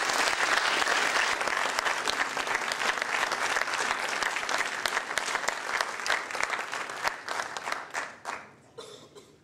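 Audience applauding, a dense patter of clapping that thins out and dies away over the last couple of seconds.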